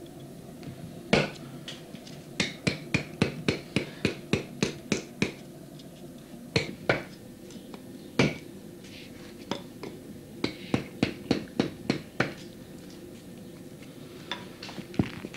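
Mallet tapping a woodcarving chisel into wood: sharp knocks in quick runs of several strikes, about four a second, with short pauses between the runs.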